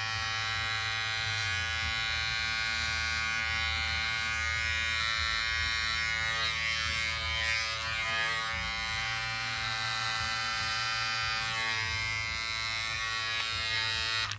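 Cordless electric hair clippers running with a steady buzz while trimming a beard, then switched off abruptly near the end.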